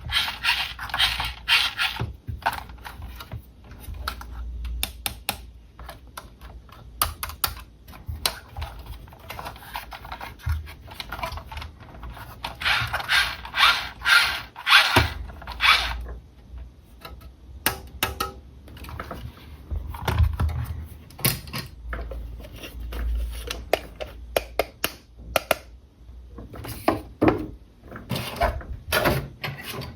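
Close-up hand handling of a plastic RC toy car and its packaging: rapid clicking and rattling of plastic, coming and going in bursts.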